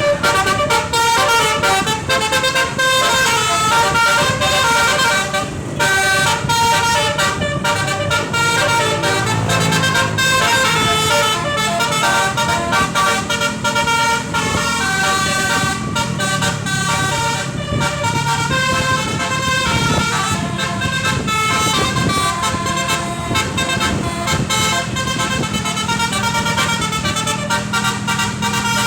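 Indonesian bus's basuri "telolet" musical horn playing a rapid, constantly changing multi-note tune, over the bus's engine running.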